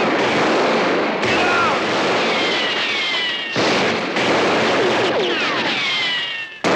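Movie gunfight sound effects: dense, continuous gunfire with bullets striking wooden crates and ricochets whining down in pitch. The sound changes abruptly every second or so, and there is a brief dip just before the end.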